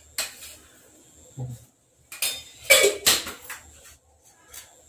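Steel canister and spoon clinking as tea is spooned into a pot of milk: a few sharp metallic clinks, the loudest about two to three seconds in.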